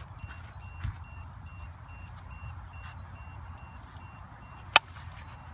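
A single sharp crack near the end: a softball bat hitting a ball on a swing. Underneath, a steady two-tone electronic beep repeats about twice a second over a low rumble.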